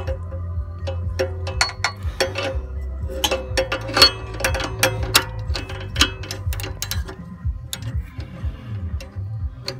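Ratcheting wrench clicking in quick, uneven runs as it tightens a new upstream oxygen sensor into place. A steady low hum runs underneath.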